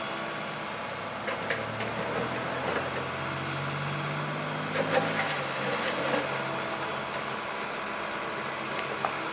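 John Deere 75D excavator's diesel engine running steadily. Its note rises and strengthens for a few seconds partway through as it works, with a few scattered knocks.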